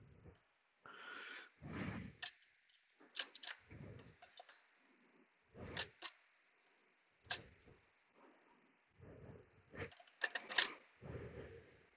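Irregular metallic clicks and clunks as a BMW dual-clutch pack is turned back and forth and worked down into the transmission case so its splines engage the oil pump gear.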